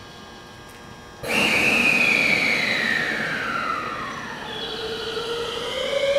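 JR West 223 series electric multiple unit starting to pull away. About a second in, its traction inverter and motors cut in with a sudden loud whine that falls in pitch. Near the middle a second tone begins rising from low as the train gathers speed.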